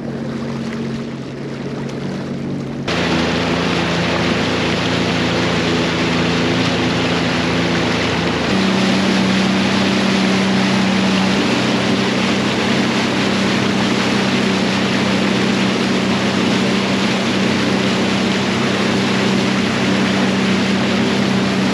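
Sea-Doo GTX 170 personal watercraft's three-cylinder engine running slowly, then throttled up about three seconds in, bringing a steady rush of spray and wind. The engine pitch steps up again about eight seconds in and holds there at a steady cruise.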